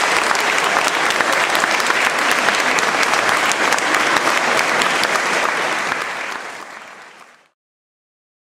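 Audience applauding, a steady dense clapping of many hands that fades away near the end.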